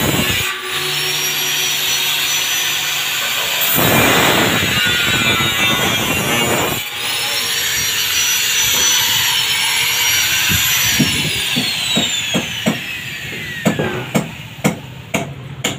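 Angle grinder cutting steel rebar, its high whine running over the harsh grinding noise, then falling away as the disc spins down about 11 seconds in. Near the end, a run of sharp knocks, about two a second.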